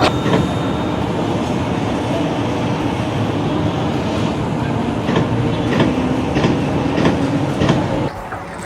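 Steady heavy mechanical rumble with regular clacks, cutting off suddenly about eight seconds in.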